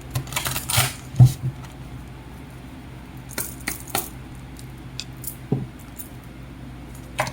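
Small hard objects being handled on a tabletop: a short rustle, then scattered light clicks and clinks, about a half-dozen spread out.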